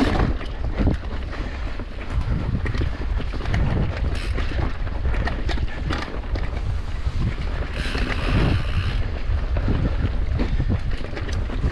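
Wind buffeting the microphone of a rider-mounted camera as a mountain bike rolls over dirt singletrack, with tyre rumble and frequent short rattles and knocks from the bike over bumps and roots. A brief hiss about two-thirds of the way in.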